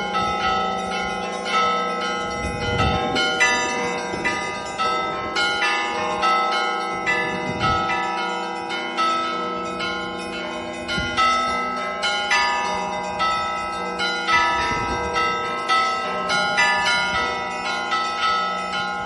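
Russian Orthodox church bells rung in a festive Easter peal (zvon) by one bell ringer: quick rhythmic strikes on the smaller bells over a wash of sustained ringing, with a deeper stroke now and then.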